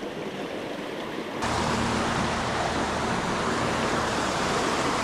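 Creek water rushing steadily, getting suddenly louder about a second and a half in and then holding steady.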